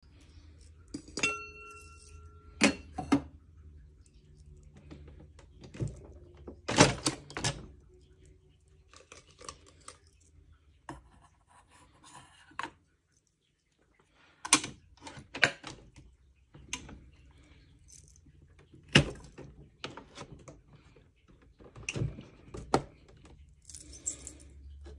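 Clicks, knocks and clinks from handling a Nespresso Vertuo Next coffee machine and its capsules: the head is opened, a capsule is set into the holder and the head is shut. A short, ringing metallic clink comes about a second in.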